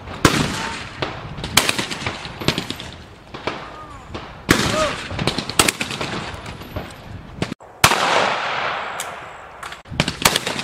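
Shotgun shots at clay targets: several sharp reports a second or more apart, some close and loud, others fainter from guns further off.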